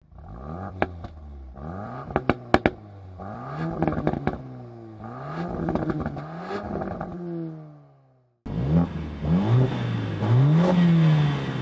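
A Volkswagen Golf R's turbocharged 2.0-litre four-cylinder revved repeatedly at standstill through its quad exhaust, with sharp pops and crackles among the blips. About eight seconds in it cuts to a Mercedes-AMG A45 S's turbocharged 2.0-litre four-cylinder revving, louder.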